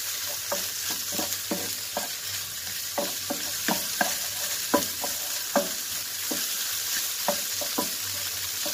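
Diced ham and hotdog sizzling in a little oil in a non-stick frying pan, stirred with a spatula that scrapes and taps the pan about twice a second over a steady hiss of frying.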